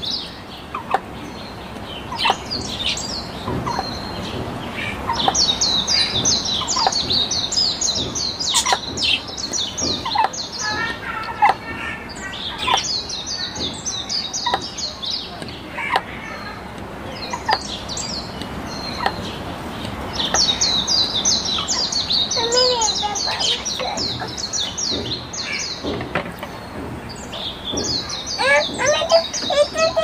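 Caged budgerigars chirping and warbling in fast, chattering runs that come and go several times, with scattered sharp clicks among them.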